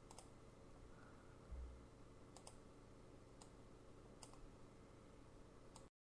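About six faint computer-mouse clicks, spread out with two close together midway, against near-silent room tone, with one soft low thump about one and a half seconds in. The sound cuts off abruptly just before the end.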